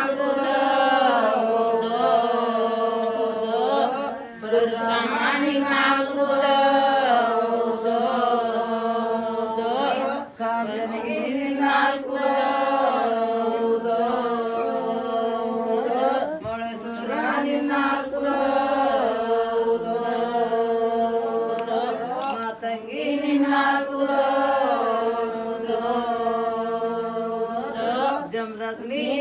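A group of women singing a devotional chant together in unison, in long held phrases that repeat about every six seconds.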